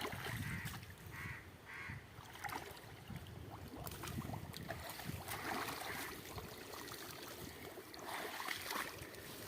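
Faint sloshing and splashing of water, uneven and broken by small scattered sounds.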